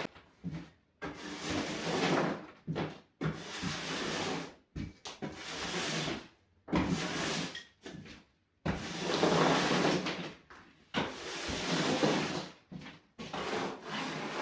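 Old wooden floorboards being pried up and shifted: rough scraping and knocking in short bursts of a second or two, each broken off suddenly.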